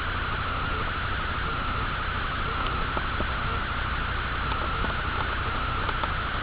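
Steady background hiss with a narrow high whine and a low hum, over which a pen drawing on paper makes a few faint ticks and scratches.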